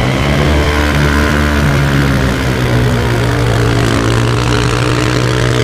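Engine of a stunt vehicle running steadily, its pitch held nearly constant.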